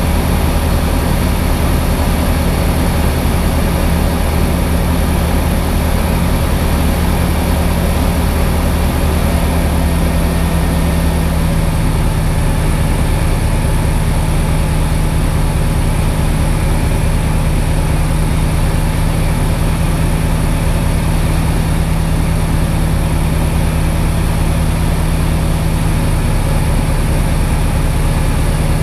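Diamond DA20 light aircraft's engine and propeller running steadily, heard from inside the cockpit during the landing approach, under a constant hiss. About 11 seconds in, the engine note changes with a power change and then holds steady again.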